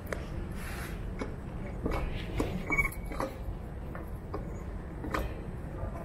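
Footsteps on a hard polished floor: irregular taps and clicks over a low steady rumble, with a brief high squeak about three seconds in.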